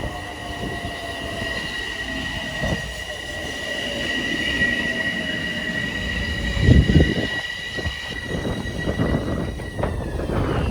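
Metro-North electric commuter train in the station, slowing: a steady high-pitched squeal from the wheels and brakes and a motor whine falling in pitch. A loud low rumble comes about seven seconds in, and the squeal dies away near the end.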